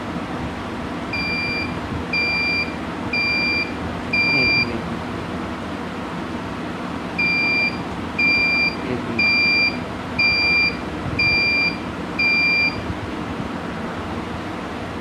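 Buzzer on an Arduino MQ-7 carbon monoxide detector sounding its alarm. It gives short, high, single-pitched beeps about a second apart: four, a pause, then six more, over a steady background hiss.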